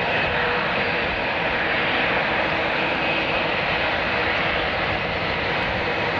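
Airliner engines running with a steady, even rushing noise and a faint whine, holding level throughout.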